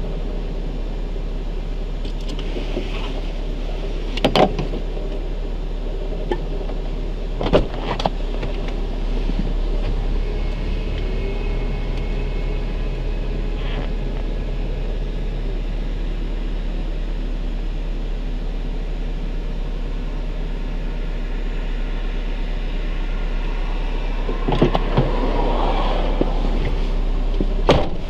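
Suzuki Swift (ZD11S) engine running with a rattling katakata noise and a metallic scraping mixed in, a fault that appears as the engine warms up from a cold start. A few sharp knocks stand out over it.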